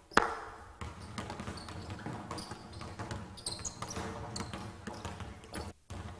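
A basketball bouncing on a hardwood gym floor amid running footsteps, with one sharp bang just after the start.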